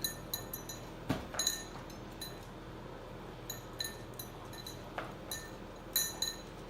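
Light, high-pitched clinking, about fifteen short ringing ticks at irregular intervals, with a soft thump about a second in.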